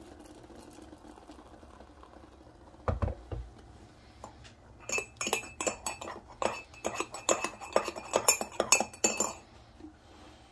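Metal teaspoon beating a coffee mixture in a ceramic mug, clinking rapidly against the sides for about four seconds. A single dull thump comes first, about three seconds in.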